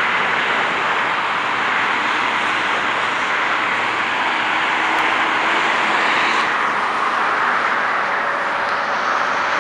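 Steady noise of heavy traffic on a multi-lane highway: tyres and engines of many passing cars and trucks, an even hiss with no single vehicle standing out.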